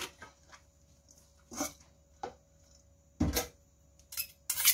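A few separate knocks and clatters of metal spoons against a stainless steel mixing bowl as salad is tossed, the loudest about three seconds in and a quick cluster near the end.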